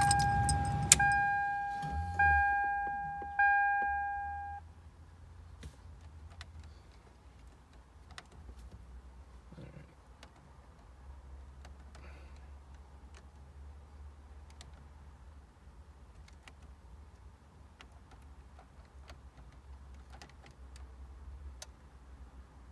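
Toyota 4Runner's dashboard warning chime ringing about once a second, each ding fading away, until it stops about four and a half seconds in. After that, only faint clicks from pressing the car stereo's knob and buttons over a low rumble.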